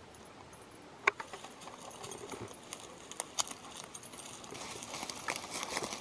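Footsteps crackling through leaf litter and twigs, with irregular clicks and one sharp snap about a second in, the crackling growing busier toward the end.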